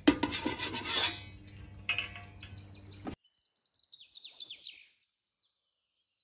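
A metal spatula scraping and clattering against the steel plate of an electric bread oven as a loaf is slid in, over a low hum, cut off suddenly about three seconds in. Then a short run of faint bird chirps.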